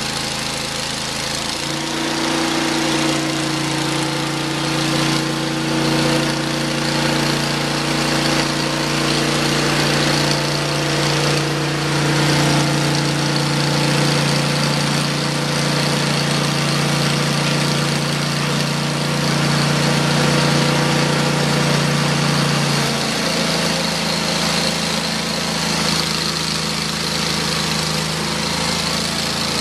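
Engine of a Hud-Son Oscar 36 portable bandsaw mill running steadily while the band blade saws a soft maple log. Its note shifts about two seconds in and shifts back about twenty-three seconds in.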